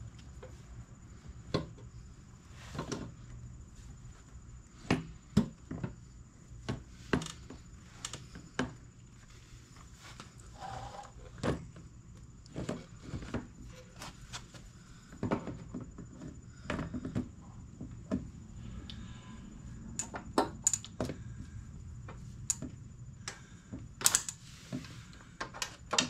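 Irregular metallic clicks, taps and knocks as the rebuilt carburetor bank of a 1975 Honda GL1000 Gold Wing is handled and worked into place on the engine, its linkage and fittings bumping on the metal around it. A steady low hum runs underneath.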